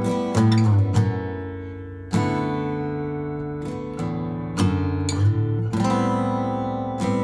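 Background music: acoustic guitar strumming chords, each struck chord ringing out and fading before the next.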